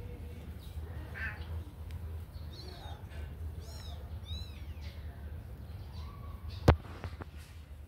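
Kitten mewing, a few short high calls around the middle, over a steady low rumble. One sharp knock, the loudest sound, comes about two-thirds of the way through.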